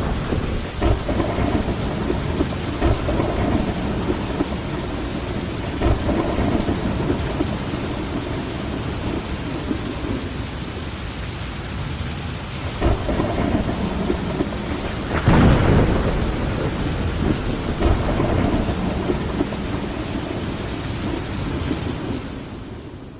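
Steady heavy rain against window glass, with deep rumbles that swell and die away, the loudest about two-thirds of the way in. The whole sound fades out at the very end.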